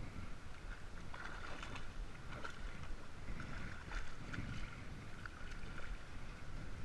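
Low, steady rumble typical of wind on the microphone, with faint scattered ticks and rustles.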